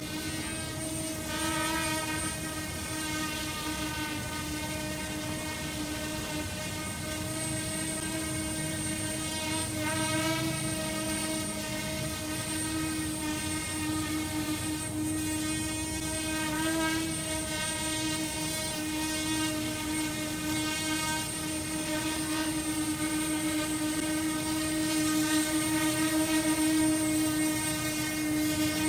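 L100 brushless quadcopter drone in flight: a steady propeller whine, with a few brief wobbles in pitch as the motors adjust speed.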